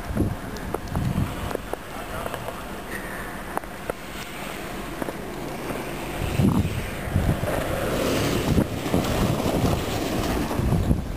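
A car driving slowly through slushy snow, its tyre and engine noise swelling as it passes close in the second half, over wind buffeting the microphone.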